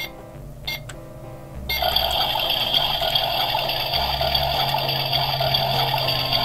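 Toy oven started with a button press or two, then its electronic cooking sound effect: a steady hissing noise from its small speaker that sets in about two seconds in and keeps going while the timer counts down.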